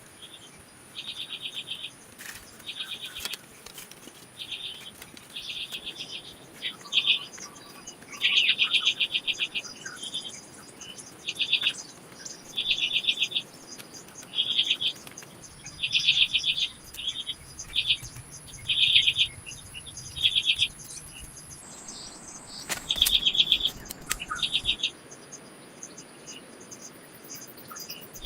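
Wildlife calling: short high trills, each a fast run of pulses lasting under a second, repeat about once a second over a steady very high-pitched hum.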